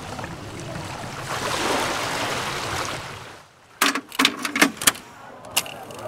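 Seawater washing among shoreline rocks, swelling and then fading away. About four seconds in comes a rapid run of sharp clicks, followed by one more shortly after.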